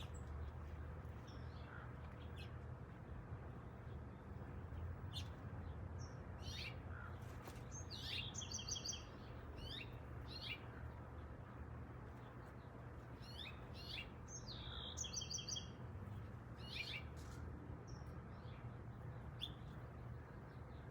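Birds singing in a garden: scattered short high chirps, with two longer song phrases about eight and fifteen seconds in, over a steady low rumble.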